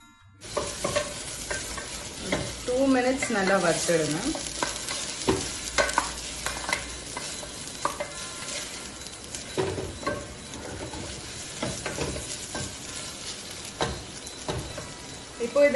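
Onions and ginger-garlic paste sizzling in an open metal pressure cooker as a wooden spatula stirs and scrapes the pot, with frequent short knocks of the spatula against the metal. The frying starts suddenly about half a second in.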